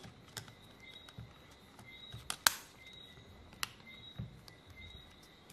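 Small plastic clicks and taps as the plastic cover plate and back cover are fitted and pressed onto a Samsung Galaxy A50 phone's frame: a handful of scattered sharp clicks, the loudest about two and a half seconds in, with a few soft knocks.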